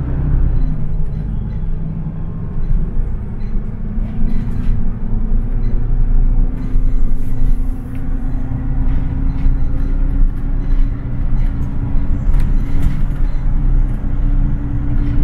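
Inside a Seoul city bus under way: a heavy low rumble of engine and road noise, with a low drone that slowly rises in pitch as the bus gathers speed. A few light rattles come through the rumble.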